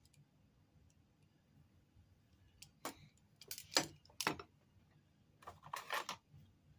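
A steel flat-bar carry handle and its locking C-clamp being handled and turned over, giving a few short metallic clicks and rattles about three seconds in and again near the end.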